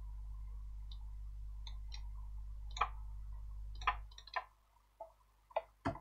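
Scattered sharp clicks of a computer mouse and keyboard, about nine, over a low steady hum that fades out about four seconds in.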